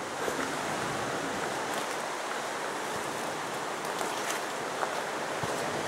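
Steady rushing of water from a stream below, an even hiss, with a few faint clicks.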